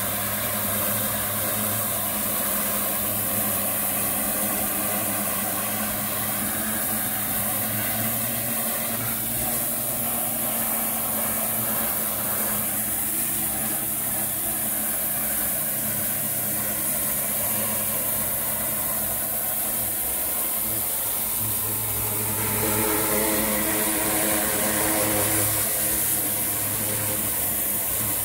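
High-pressure water cleaner running steadily: a constant machine hum under the hiss of the spray jet working along a brick wall. The sound gets a little louder with a higher droning tone from about two-thirds of the way in for a few seconds.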